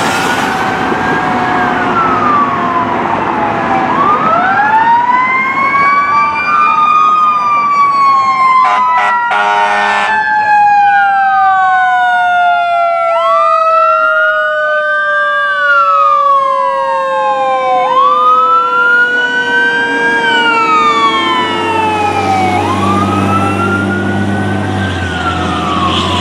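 Fire engine responding with its sirens. A Whelen 295-series electronic siren cycles in a rising and falling wail about every four seconds. Over it, a Federal Signal Q2B mechanical siren winds up and then coasts down in one long falling tone. A short burst of loud blasts comes about nine seconds in, and the truck's engine rumble grows near the end as it passes.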